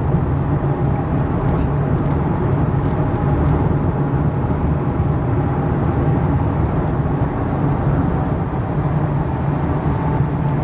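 Steady road and engine noise of a car being driven, heard from inside the cabin, a low even rumble.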